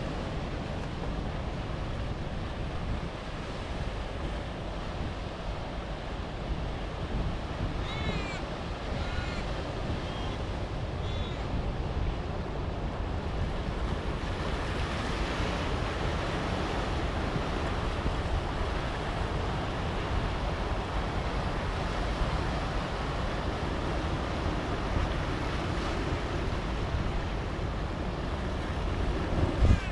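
Sea surf washing over a rocky shoreline, a steady rushing wash, with wind buffeting the microphone. A few short, high chirping calls come about eight seconds in.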